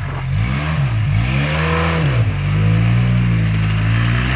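Four-wheel-drive vehicle's engine revving, its pitch rising and falling several times, then held at steady high revs for the last couple of seconds.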